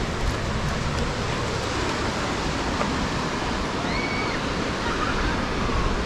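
Ocean surf washing in steadily, mixed with wind noise on the microphone.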